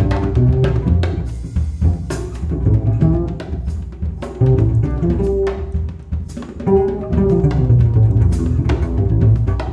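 Jazz samba played live on upright double bass and drum kit: plucked bass lines under drum and cymbal strokes.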